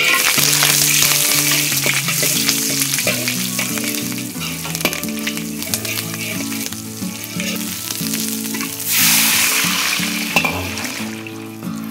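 Food sizzling as it fries in hot oil in a pan, flaring up briefly about nine seconds in, over background music.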